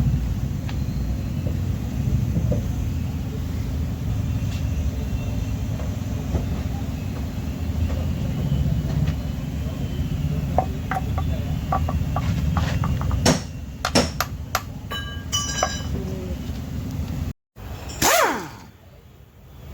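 Metal tools and engine parts clinking and clanking, some strikes ringing, over a steady low rumble that cuts off suddenly near the end.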